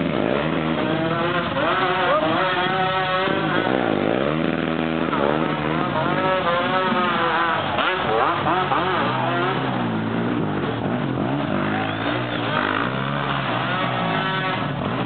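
ATV engines revving, several pitches rising and falling and overlapping as the machines accelerate and back off.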